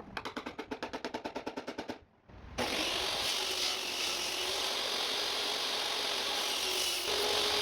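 A fast, even run of clicks, about ten a second, stops after about two seconds. After a short gap a power tool runs steadily on wood.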